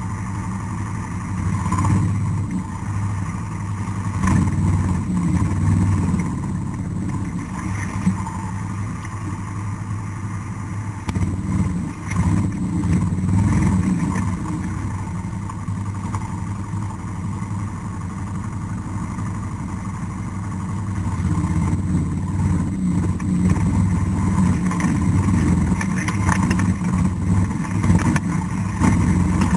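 ATV engine running while ridden through bush, the revs rising and easing over uneven ground. It gets somewhat louder during the second half.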